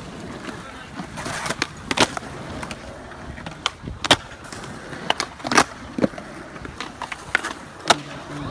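Skateboard flatground tricks on concrete: sharp cracks of the tail popping and the board landing, about a dozen over the stretch, with the wheels rolling and clattering between them.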